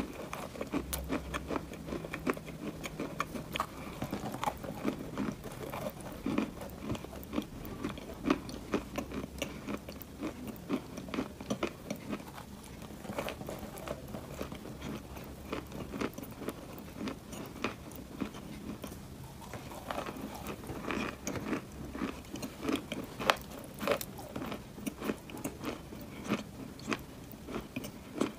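Close-miked biting and chewing of a chunk of Ural Black clay, a dry, layered grey-black clay: a dense run of sharp crunches and crackles as flakes break between the teeth.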